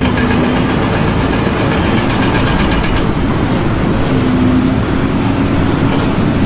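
Loud, steady mechanical rumble that starts abruptly, with a faint hum in it.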